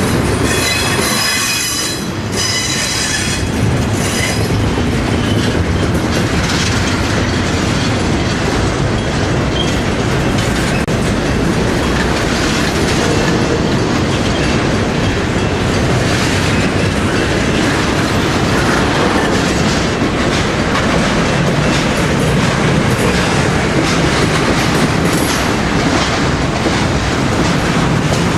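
A train rolling past: the steady rumble and clatter of railroad cars on the track. Two short spells of high-pitched wheel squeal come in the first few seconds.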